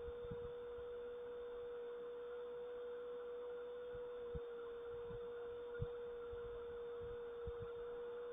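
A steady single-pitched hum, a mid-pitched tone held unchanged, over a faint hiss, with a few soft low thumps about four and six seconds in.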